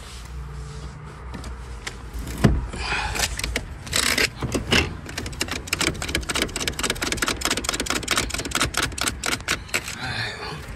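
Chevy Malibu manual front seat being adjusted by hand: a quick run of clicks and rattles from the seat's lever and rail mechanism, with a thump about two and a half seconds in.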